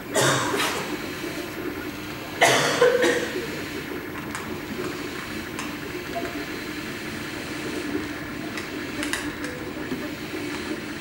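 MakerBot 3D printer running as it prints, its stepper motors and cooling fan making a steady mechanical hum. Two short, loud noises cut in, one right at the start and one about two and a half seconds in.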